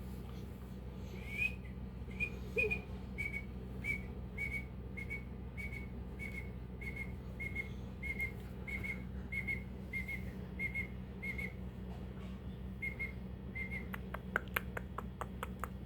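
A pet parrot giving a long run of short, identical whistled chirps, about one every half second or so. A quick series of sharp clicks follows near the end.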